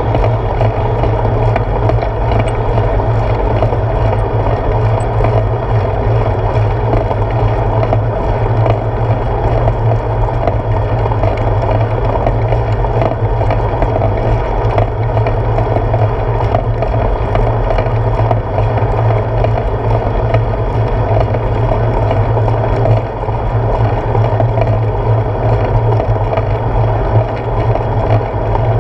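Bicycle rolling on asphalt, heard through a handlebar-mounted GoPro Hero 4: a steady, loud noise of tyre and road vibration carried up through the handlebar mount.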